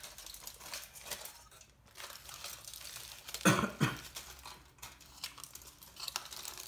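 Aluminium foil wrapped around a burrito crinkling as it is handled, with one louder rustle about three and a half seconds in.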